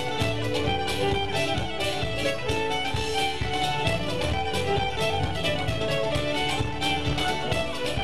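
Live folk-band music: a fiddle leads a tune over guitar, with a steady beat of about three strokes a second.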